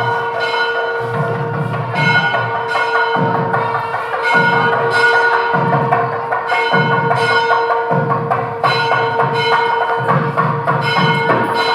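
Background music: bell-like struck notes and percussion over a steady drone tone.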